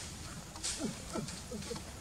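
Three or four short, low animal calls, each falling in pitch, following a brief crackle about two-thirds of a second in.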